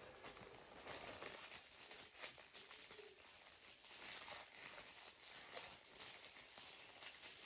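Faint, irregular rustling and crinkling of packaging being handled.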